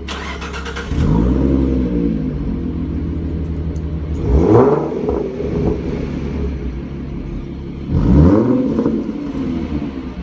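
Ford Mustang 3.7 V6 with a Borla S-Type cat-back exhaust, idling and blipped three times: a slower rev about a second in, then two sharp revs about four and eight seconds in, dropping back to idle after each.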